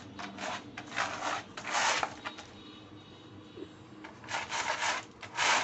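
German Shepherd puppy digging at a doormat, its claws scraping the mat in quick strokes. The scraping comes in two bouts, the second starting about four seconds in.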